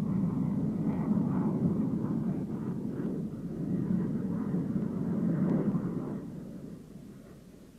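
Jet noise from an F-15 Eagle's twin turbofan engines: a steady low rushing rumble that fades away over the last two seconds or so.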